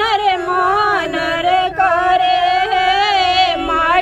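Female voice singing a traditional wedding folk song in long, held, wavering notes, with a brief break for breath partway through.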